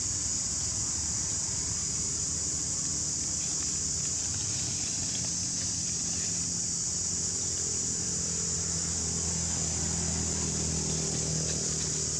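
Outdoor ambience: a steady high-pitched insect drone over a low engine hum, which grows a little stronger about halfway through.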